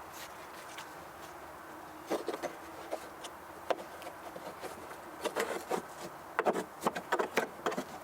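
Irregular scraping and clicking of a hand tool working packed old grass off a walk-behind lawnmower deck, in clusters that grow busier in the second half, over a faint steady hum.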